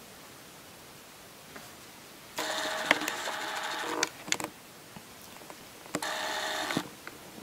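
A small motor buzzing in two bursts, the first under two seconds long and the second under one second, with a few light clicks and taps between them.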